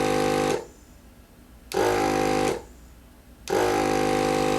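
Small electric tire inflator buzzing in short bursts, three of them about a second apart, putting the first low-pressure air (about 10 psi) into a new inner tube in an e-scooter's rear tire so the tire takes shape.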